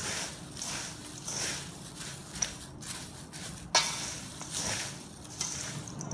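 Dry, crisp fried snack mix of peanuts, cashews, fried dal and sev stirred and tossed by hand and spoon in a stainless-steel bowl: a rustling rattle that swells in irregular surges with each stir, with one sharper knock a little over halfway through.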